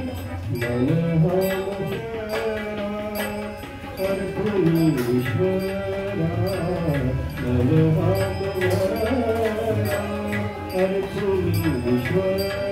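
Marathi devotional song (abhang) sung live: a singer's voice slides through an ornamented melody over a harmonium. Tabla and small hand cymbals (taal) keep a steady beat.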